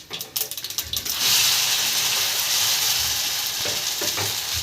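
Semolina handvo set into hot oil tempered with mustard and cumin seeds, bursting into a steady sizzle about a second in after a few light clicks, as its uncooked side starts to fry.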